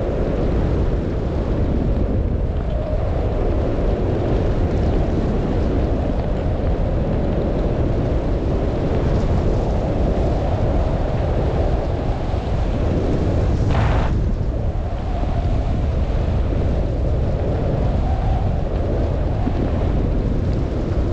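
Wind buffeting the microphone on a fast descent through a snowstorm, a loud steady rumble, over the continuous hiss and scrape of sliding on snow. A short, brighter hiss comes about fourteen seconds in.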